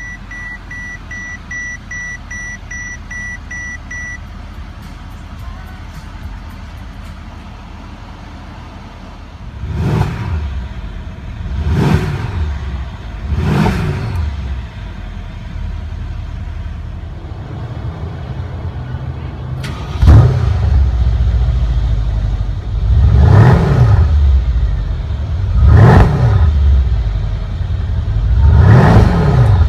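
Mercedes-Benz S63 AMG 5.5-litre twin-turbo V8 idling just after a push-button start, with a dashboard warning chime beeping rapidly for the first few seconds. The engine is revved three times, each rev rising and falling in pitch, then from the exhaust it idles louder and is revved three more times.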